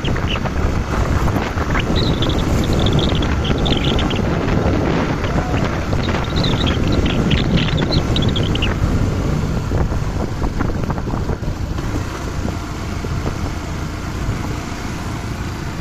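Wind buffeting the microphone on a moving vehicle, a dense rumbling roar. Bursts of high chirping sound over it a couple of times in the first half.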